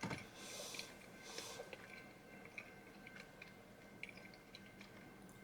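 Faint close-up chewing of a strawberry Pop-Tart, with small crunchy clicks and a couple of short crackles in the first second and a half.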